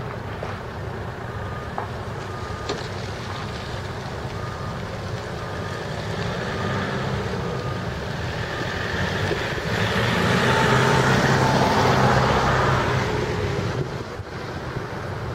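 Wheel loader's diesel engine running, with its reversing alarm beeping steadily, a little under two beeps a second, through the first half. About ten seconds in the engine revs up under load for a few seconds, then drops back.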